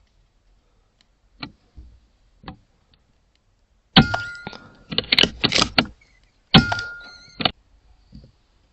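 Two sharp shots from a .22 PCP air rifle about two and a half seconds apart, each followed by a short metallic ring, with a quick run of clicks between them.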